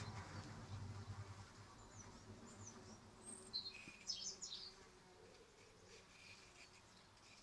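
Faint buzzing of flies trapped inside a dead horse arum flower's chamber, the pollinators it lures and holds. The buzzing is strongest in the first two seconds and then fades. A few bird chirps come about halfway through.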